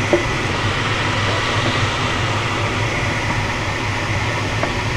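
Steady rush of airflow over a glider's canopy in flight, heard inside the cockpit, with a low steady hum under it and a faint steady high tone.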